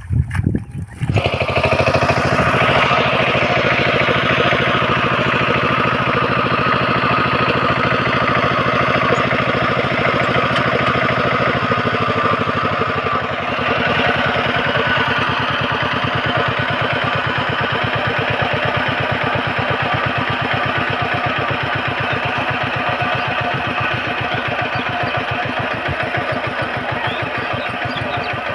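A small engine catches about a second in and then runs steadily with a rapid, even firing beat.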